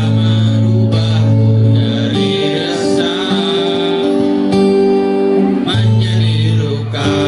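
Live guitar-accompanied pop song, with long held notes and a singing voice over the guitar.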